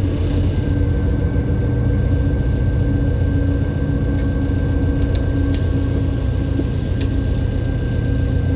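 Train's diesel engine running with a steady low rumble and a thin steady whine, with a few sharp clicks partway through.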